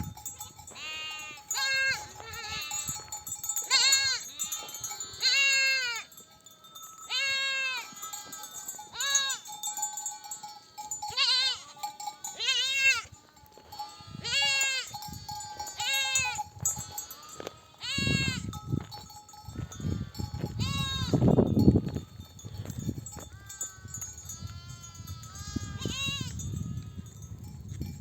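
A flock of sheep bleating over one another, many loud, repeated calls from ewes and their lambs: mother sheep back from pasture calling for their lambs to suckle.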